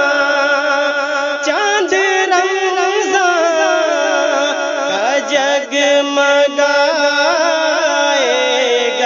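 Devotional South Asian music: a wavering, gliding melodic line over steady held lower notes, without any clear sung words.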